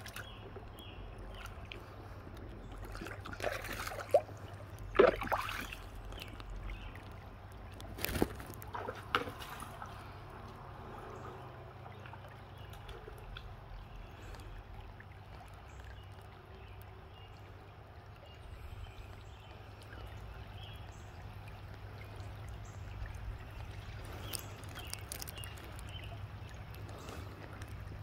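Shallow creek water trickling and rippling steadily over stones, with a few brief louder splashes about four, five and eight seconds in as a dog wades and sloshes through the water.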